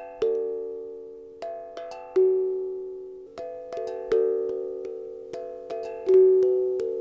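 Instrumental music: a repeating three-note figure on a pitched instrument, each note ringing and fading. The figure comes round about every two seconds.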